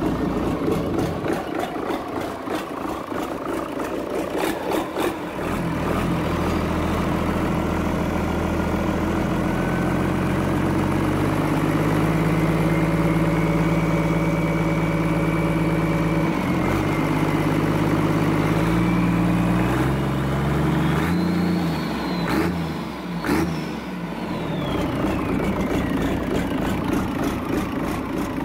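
Mitsubishi 6D15 six-cylinder turbocharged diesel engine running. It is uneven for the first few seconds, then settles into a steady run whose speed shifts in steps, under a whine that climbs slowly and falls away near the end.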